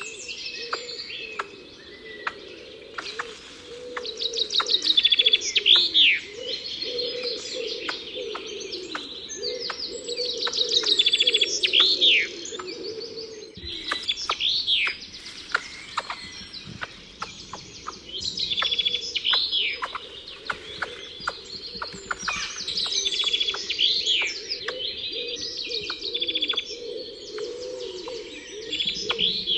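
Songbird singing a repeated phrase of quick high notes that ends in a falling sweep, about every five or six seconds, over a steady lower wavering sound.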